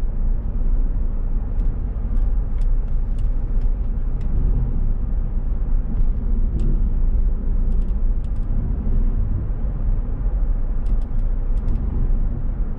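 2007 Jeep Commander driving, heard from inside the cabin: a steady low road and drivetrain rumble with a few faint sharp ticks scattered through it. This is the noise the driver is listening for and suspects might come from a shaft.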